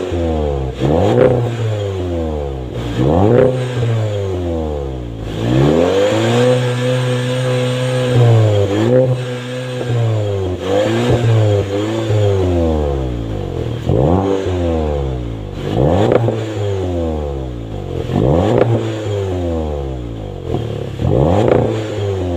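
Volkswagen Golf GTI engine free-revving at the exhaust: repeated quick throttle blips every second or two, each rising and falling back to idle, with one longer held rev about a third of the way through.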